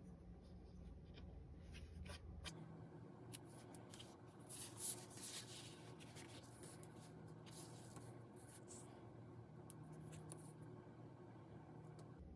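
Faint scratching and rustling of paper: a scalpel trimming thin Japanese tissue along a ruler, and a comic book cover being slid and handled on a cutting mat, with one louder rustle about five seconds in.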